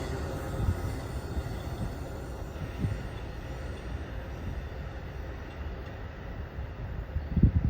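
Amtrak Auto Train's cars rolling past on the track: a steady low rumble with occasional wheel clacks. A short loud thump near the end.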